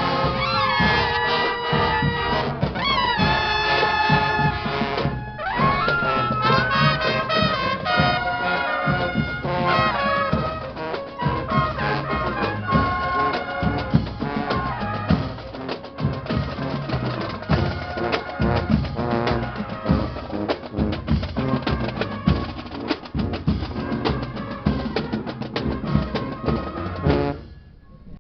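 Music with trumpets and other brass over drums, held brass notes over a steady beat; it stops suddenly about a second before the end.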